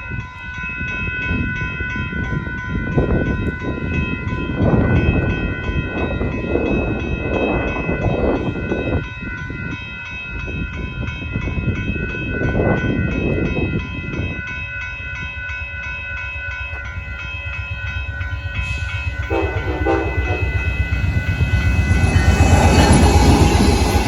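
Amtrak passenger train's locomotive horn sounding long blasts as it approaches, then the train passing close by, its locomotive and wheels on the rails growing loudest near the end.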